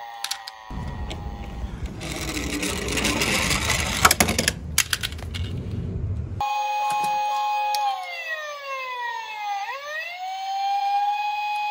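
Toy cars rattling and rolling down a plastic slope for several seconds, with a few sharp clicks. Then an electronic toy siren starts and wails: it holds a steady pitch, falls slowly, snaps back up and holds again.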